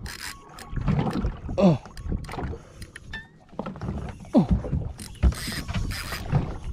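Small fishing boat on the sea: water sloshing and slapping against the hull, with a low rumble and several sharp knocks. A few short sounds fall steeply in pitch.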